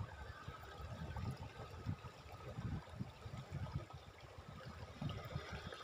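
Shallow river current running over rocks, with uneven gusts of wind rumbling on the microphone.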